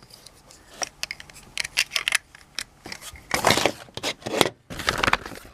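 Handling noises from opening a LEGO advent calendar compartment: a run of irregular small clicks and taps, with two longer rustling scrapes about three and a half and five seconds in.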